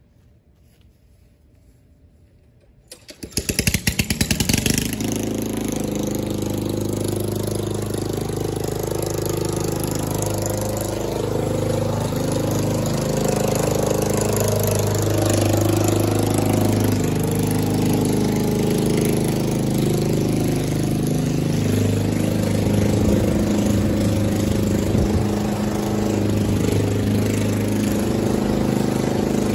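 Gasoline walk-behind lawn mower engine starting about three seconds in with a brief choppy catch, then running steadily while mowing.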